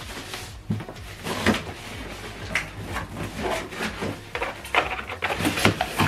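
Packaging being handled: a plastic bag rustling and cardboard and polystyrene foam packing scraping, with several knocks, a cluster of them near the end as the foam insert is lifted.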